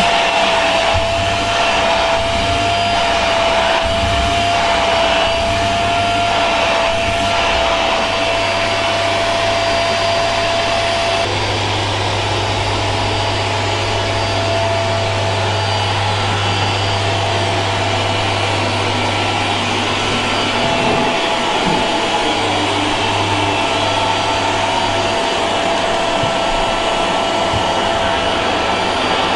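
Vacuum cleaner running steadily: a constant whine over a steady rush of air with a low hum, unchanging throughout.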